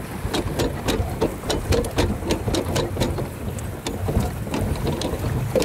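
Small boat moving on the water: a dense run of irregular splashes and clicks over a steady low rumble.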